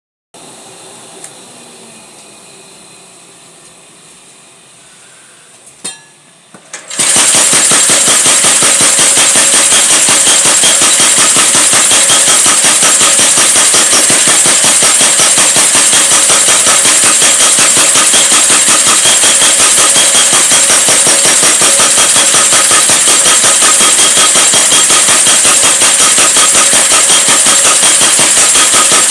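Mechanical power hammer starting up about seven seconds in and then striking in a rapid, steady train of evenly spaced blows. Before that there is only a faint background with a single click.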